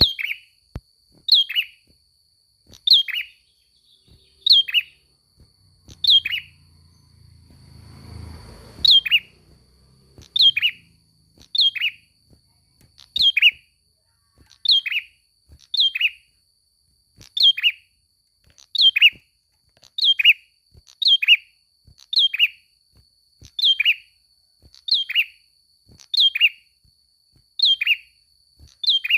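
A prenjak songbird in full song, giving a loud, sharp two-part chirp that falls in pitch, repeated steadily about once every second and a half. A faint steady high tone runs under it, and a low rumble rises briefly around the middle.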